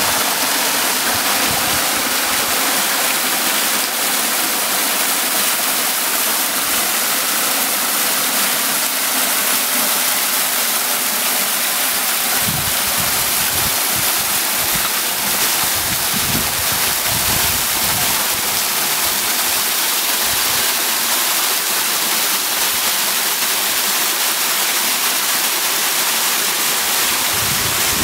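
Swimming-pool waterfall: a sheet of water pouring from a spout in a tiled wall and splashing into the pool, a steady rush.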